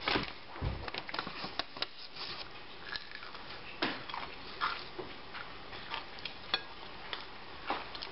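A person biting into and chewing a breadcrumb-coated fried crappie fillet, with irregular short crunches and mouth clicks scattered through.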